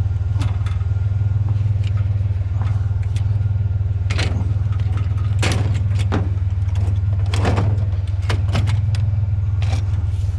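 A vehicle engine idling steadily under a run of sharp clanks and rattles as pieces of scrap metal are shifted and loaded.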